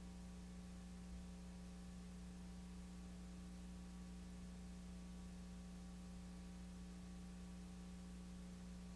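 Faint steady electrical hum with hiss and no programme sound, on a blank stretch of an old videotape recording.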